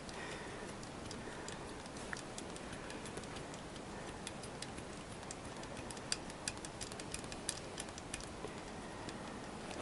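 Faint, irregular clicking of a socket ratchet working bolts loose under a motorcycle engine, a few clicks a second in short runs over a steady hiss.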